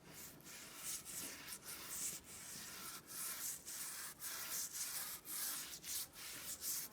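Paintbrush stroking hardwax oil stain onto rough pallet wood: quick back-and-forth bristle scrubbing, about two or three strokes a second.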